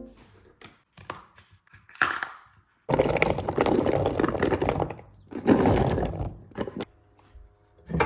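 Water running in two spells of about two seconds and one and a half seconds, after a few small clicks and knocks.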